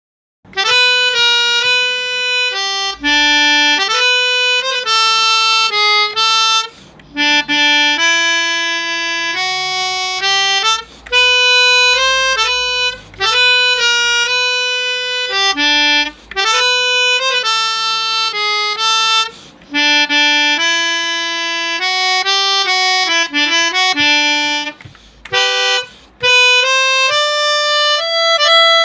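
Samick Melodihorn A-25 keyboard melodica playing a single-line melody with a reedy tone, in phrases separated by brief breaks.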